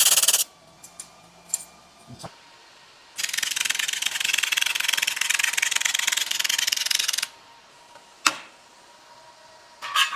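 Pulse laser welder firing a fast run of pulses: an even, rapid rasping noise lasting about four seconds, starting about three seconds in, with the end of an earlier burst at the very start. A single sharp click comes near eight seconds.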